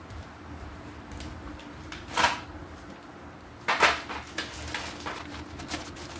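Plastic cat-treat packets rustling and being set down on a plate on a tile floor: one sharp crinkle about two seconds in, then a louder burst near four seconds followed by several shorter rustles.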